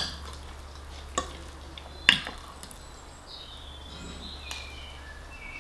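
Metal fork and spoon clinking and scraping on a ceramic plate while mashed-potato-topped fish pie is cut and scooped. There are two sharp clinks, one just over a second in and a louder one about two seconds in.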